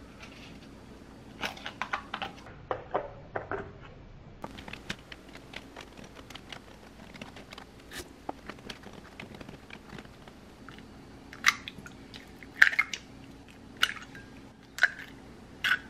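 Eggs handled one by one out of a paper-pulp egg tray into a plastic basket, with light clicks and taps of shell on plastic and pulp. In the last third, eggs are cracked on the rim of a glass bowl: five sharp knocks about a second apart.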